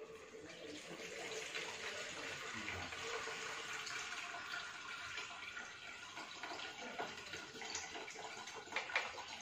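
Blended ginger juice and pulp being poured from a blender jug through a plastic sieve into a jug, a steady trickling splash of liquid, with a couple of light knocks near the end.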